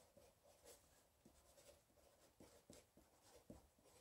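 Faint scratching of a pen writing on a paper notepad, in short irregular strokes.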